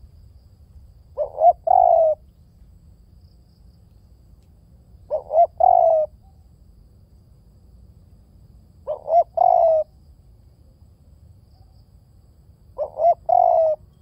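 Spotted dove cooing: four calls about four seconds apart, each a quick pair of short notes followed by a longer coo.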